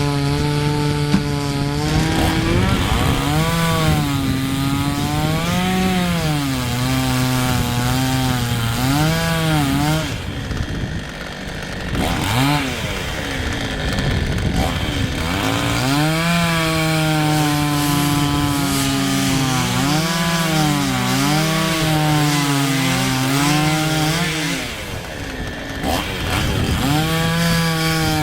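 Husqvarna T540 XP top-handle two-stroke chainsaw cutting through wood, its engine pitch sagging and rising again and again as the chain loads up in the cut and frees. The saw drops back to a quieter, lower run twice, about ten seconds in and again near the end.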